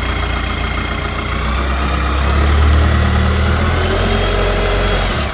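Branson F50 compact tractor's diesel engine running just after being restarted, growing louder about halfway through, then cutting off suddenly near the end.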